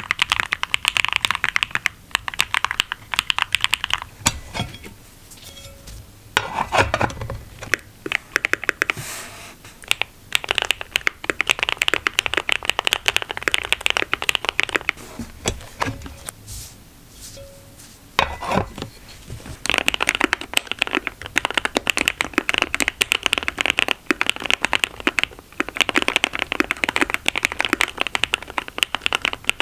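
Typing on a Keychron Q1 mechanical keyboard with lubed Akko CS Jelly Black linear switches: fast runs of keystrokes broken by stretches of slower, scattered presses, with a few deeper key hits among them.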